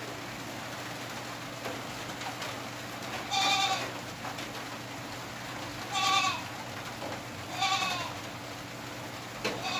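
An animal calling in the background, three short high calls a couple of seconds apart, each dipping slightly in pitch at the end, over a steady low hum.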